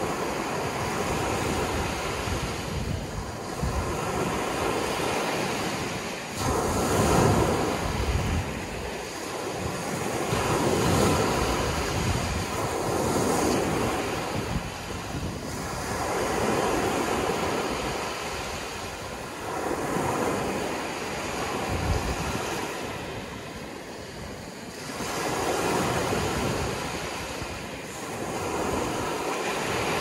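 Ocean surf: waves washing in and breaking, the rush of water swelling and falling away once every three to four seconds.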